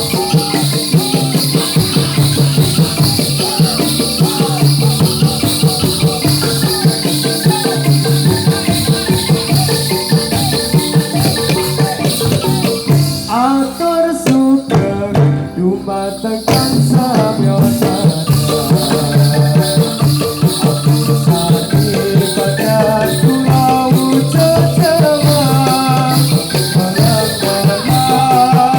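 Topeng Ireng dance music: a dense, steady jingling of many small bells over drum beats and a melody line. The jingling drops out for about two seconds around the middle, then comes back.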